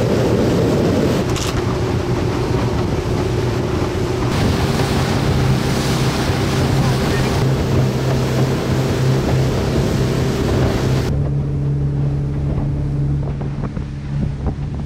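A 150 hp outboard motor driving an open skiff at speed: a steady engine drone under the rush of wind on the microphone and water from the wake. About eleven seconds in the hiss of wind and water drops away and the engine drone stays.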